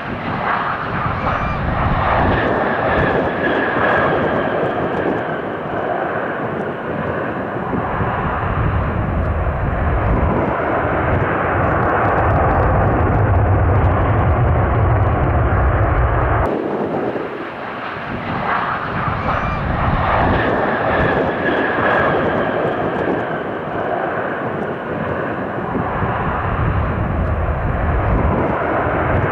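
Boeing 737-400's CFM56 jet engines during the landing roll: a loud, steady jet noise with a deep rumble building toward the middle. About two-thirds of the way through, the sound cuts off sharply and the same passage starts over.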